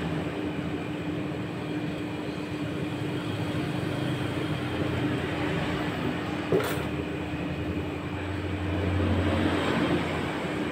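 Roll ice cream machine's refrigeration unit running with a steady hum, briefly louder near the end, with a single sharp click partway through.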